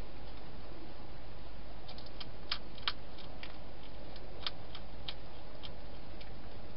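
A wild hedgehog crunching food inside a plastic feeding box: a string of sharp, irregular clicks, about a dozen, over a steady hiss.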